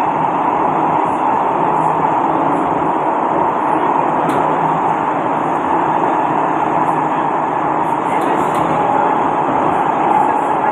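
Interior running noise of an SMRT Kawasaki-Sifang C151B metro train travelling through the tunnel: a loud, steady rumble with a constant high whine running through it.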